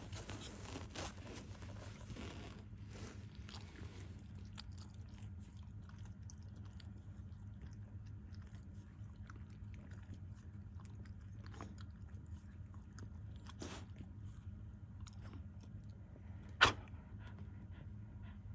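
Chewing and crunching, scattered small crunches over a steady low hum, with one sharp click near the end.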